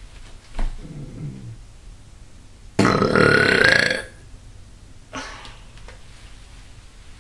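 A person burping on purpose, the air-swallowing kind: a short low burp about a second in, then a loud burp lasting just over a second about three seconds in.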